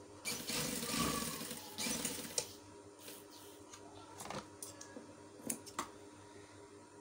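Sewing machine running a short seam for about two seconds, then stopping, followed by a few scattered light clicks.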